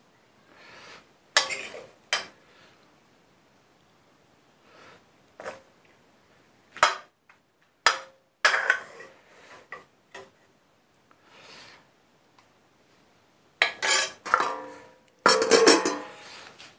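Steel dishes clinking: a steel ladle and steel plate knocking and scraping as mustard greens are served onto rice, in scattered short knocks that come thicker near the end.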